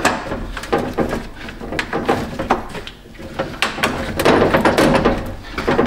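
A plastic lower trim piece being pushed and worked onto the edge of an aluminum radiator, its tabs hooked through notches: a run of small clicks and knocks of plastic on metal, with a longer scraping stretch near the end.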